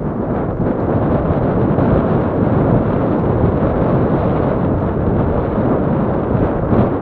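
Heavy wind buffeting the microphone: a loud, steady rumble with no distinct tones.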